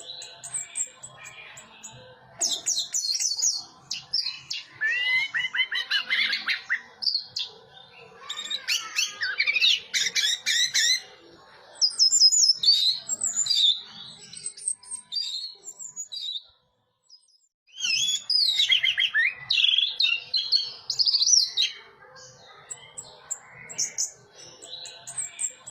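Orange-headed thrush singing a long, varied song of rapid whistled phrases and trills, with a brief pause about two-thirds of the way through.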